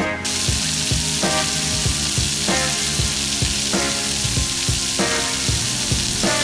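Steady hiss of a rain-curtain fountain's water drops falling from an overhead steel pergola onto wet paving. It starts suddenly just after the beginning, under background music.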